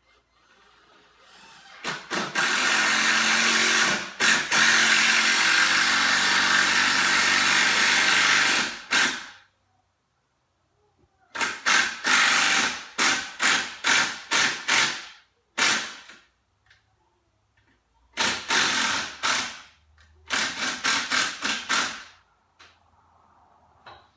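Cordless driver sinking 2.5-inch screws into 2x4 framing: one long run of about seven seconds, then three shorter spells of quick stuttering bursts.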